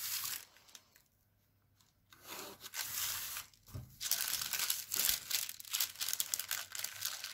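Sheet of pattern paper rustling and crinkling as hands smooth it flat and fold it over, with a near-silent pause about a second in and denser rustling in the second half.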